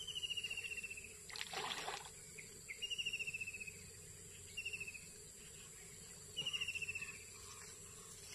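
An animal calls four times with a short, rapid trill that falls slightly in pitch, each lasting under a second. A brief rush of noise comes about a second and a half in.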